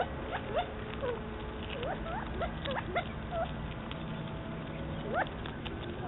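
A group of quail calling: many short chirps and upward-swooping notes, scattered and often overlapping, with one louder swooping call near the end.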